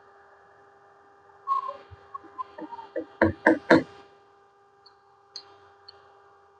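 Metal spoon clinking against a frying pan (kadai): a run of light clinks, then three loud knocks about halfway through, over a faint steady hum.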